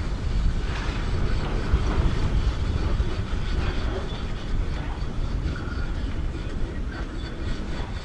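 Hitachi hydraulic excavator working a pile of broken stone: a continuous low engine rumble with faint scattered clatter of stone.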